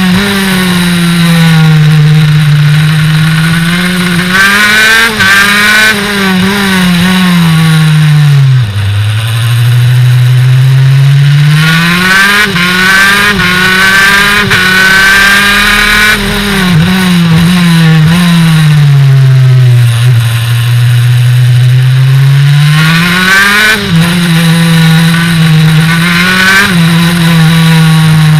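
Kart engine running flat out on track. Its note drops sharply twice as the kart slows for corners and climbs back up as it accelerates out, holding high in between.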